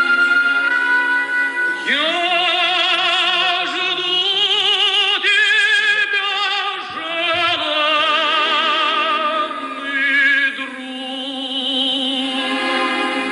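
Operatic singing with a wide vibrato, sweeping up into a loud, sustained phrase about two seconds in and holding long notes.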